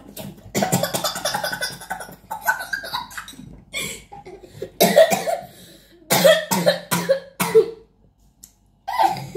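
A person coughing in several fits: a quick run of coughs early on, then separate loud coughs about halfway through and one near the end.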